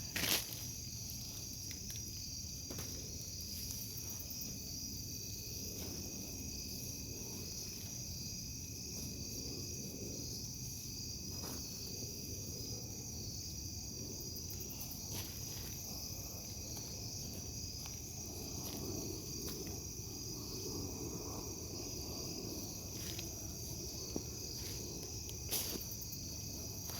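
Steady chorus of night insects, singing at two pitches throughout, with soft rustling and scraping of hands digging through loose potting soil in a grow bag.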